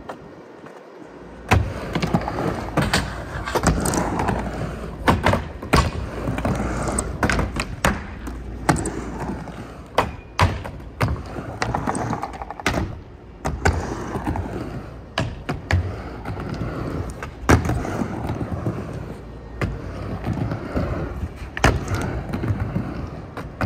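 Skateboard dropping in on a mini ramp, then its wheels rolling back and forth between the ramp walls, the rumble swelling and fading about every two seconds. Sharp clacks come at intervals as the board hits the coping and lands.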